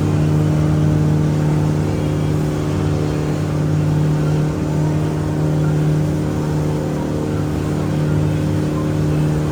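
Riverboat's engine running at a steady cruising speed, an even, unchanging drone.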